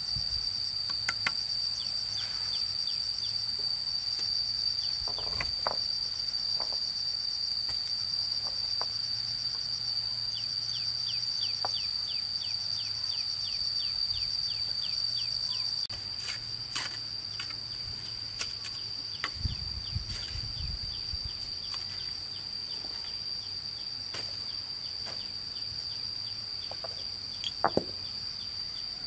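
Insects shrilling in a steady high-pitched chorus, with a second insect's rapid ticking chirps coming in runs. A few light knocks and taps come from stones and a trowel being handled.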